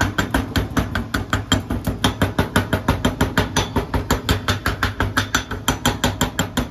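Chipping hammer rapidly striking slag off a fresh flux-core weld bead, about five to six metallic strikes a second, over a steady low hum.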